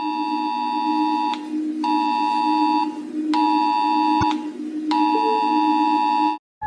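Emergency alert broadcast tone: four long, pulsed two-tone beeps, each about a second long with short gaps, over a steady lower hum.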